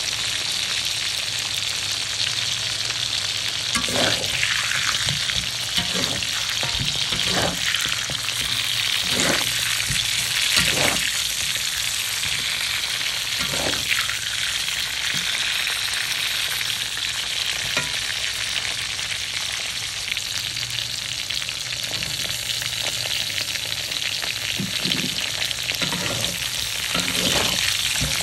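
Chicken pieces frying in hot oil with onions and ginger, a steady sizzle. The pan is stirred now and then, with short scraping knocks several times in the first half and again near the end.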